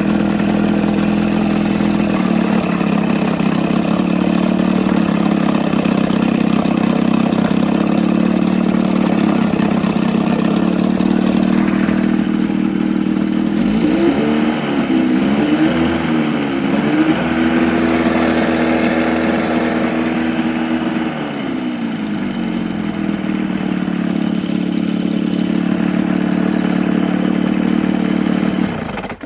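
1981 Johnson 9.9 hp two-cylinder two-stroke outboard running in a test barrel, idling steadily. About halfway through the throttle is blipped up and down, held at a higher speed for a few seconds, then eased back to idle, and the engine is switched off just before the end, cutting out suddenly.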